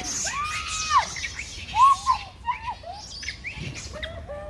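A large troop of macaques calling over one another: many short, arching, whistle-like coos and squeals overlapping, with a harsh hissy shriek near the start.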